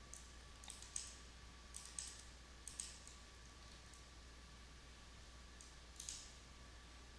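Faint computer mouse and keyboard clicks: a scatter of short, sharp clicks, several in quick pairs over the first three seconds, then one more about six seconds in.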